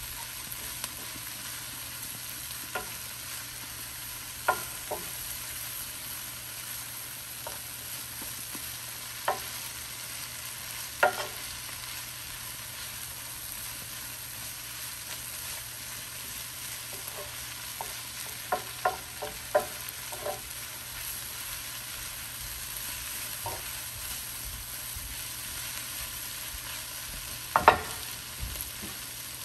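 Chopped kale frying in oil in a pan, a steady sizzle, stirred with a wooden spoon that knocks against the pan now and then, in a quick run of knocks past the middle and one louder knock near the end.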